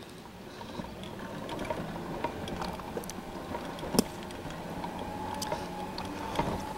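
A motor or engine running with a steady hum that grows louder over the first couple of seconds, with scattered sharp clicks and knocks.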